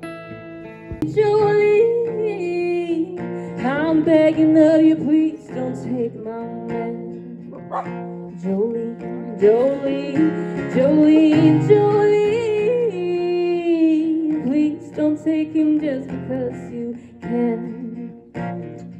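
Young woman singing a song live, accompanying herself on a strummed acoustic guitar; her voice comes in about a second in over the held guitar chords.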